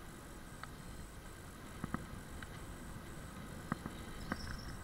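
Electric scooter rolling along a paved street: a steady low rumble of tyre and wind noise, with several sharp clicks or knocks at irregular moments.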